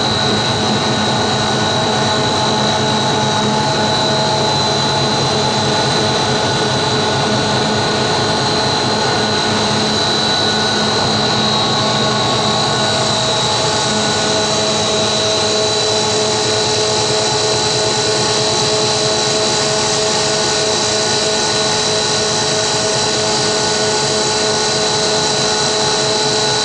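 Dog food making machinery running steadily: a loud, even machine noise with a constant high-pitched whine over several lower hums.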